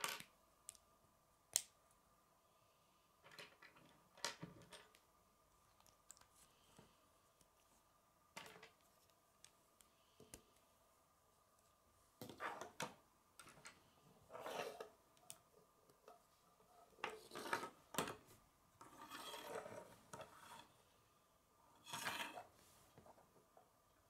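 K'nex plastic connectors and rods being handled and snapped together on a wooden table: scattered sharp clicks and brief rattles, coming more often in the second half.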